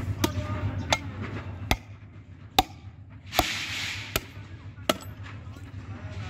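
Butcher's cleaver chopping a goat's head on the ground: seven sharp strikes, less than a second apart.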